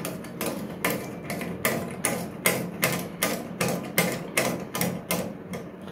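Steady run of small plastic clicks, about two to three a second, from the cistern's push-button flush fitting being turned by hand to set its height.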